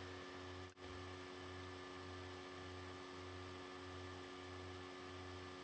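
Steady electrical hum with a faint high whine and hiss from the recording equipment; the sound cuts out briefly just under a second in.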